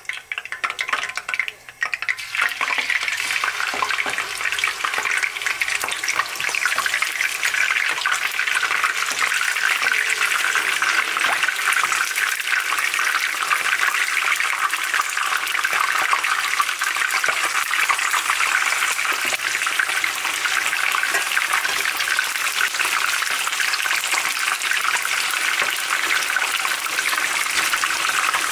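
Marinated chicken pieces frying in hot oil in a pan. The loud, steady sizzle swells about two seconds in and then holds.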